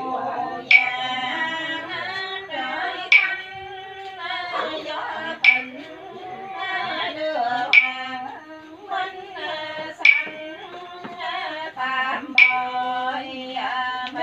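Voices chanting Cao Đài prayers in a sung, drawn-out style, with a sharp ringing stroke struck about every two and a half seconds to keep time.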